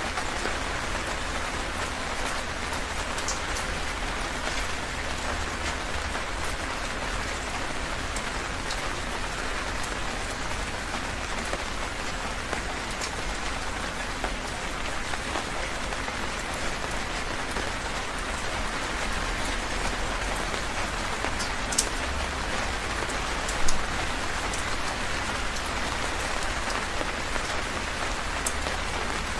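Heavy rain falling steadily on a surface, a dense even hiss with scattered sharper drop ticks and one louder splat near the end.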